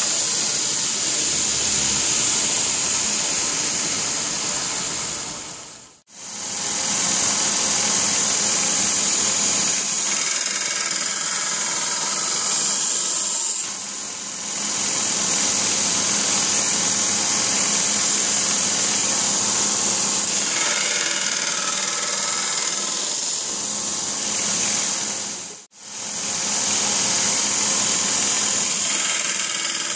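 Belt grinder running with a steel blade held against the abrasive belt, grinding a flat Scandi bevel: a steady, high hiss of belt on steel over the motor. The sound drops out briefly twice, about six seconds in and near the end.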